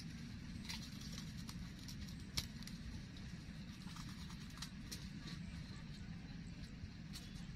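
Outdoor field ambience: a steady low rumble with scattered light clicks and crackles, and one sharper tap about two and a half seconds in.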